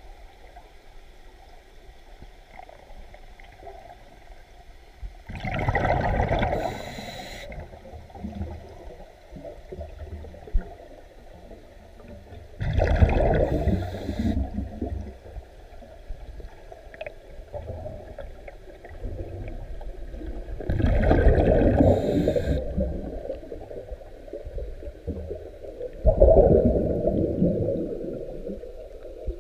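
Underwater recording of a diver breathing out: four bursts of air bubbles gurgling past, about seven to eight seconds apart, with low murmuring water between them. The last burst starts suddenly and fades away slowly.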